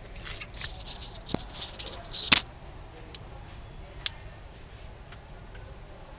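Small sharp clicks and scrapes of a precision screwdriver and fingers working the screws and metal midframe of an opened smartphone. The clicks come in a quick cluster, the loudest a little over two seconds in, followed by two lone ticks about a second apart.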